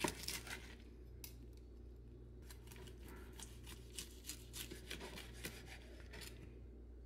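A chef's knife sawing back and forth through a roasted turkey breast with a browned, seasoned crust: a run of faint, quick scraping strokes as the blade cuts through the skin and meat.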